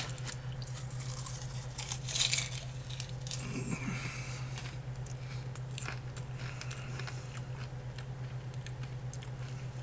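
A person chewing and crunching food, with a few clicks and a brief crinkly rustle about two seconds in, over a steady low hum.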